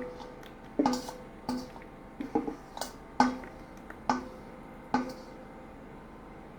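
Small lidded plates and their covers knocking and clinking as they are handled, about eight sharp knocks with a short ring over four seconds, then stopping.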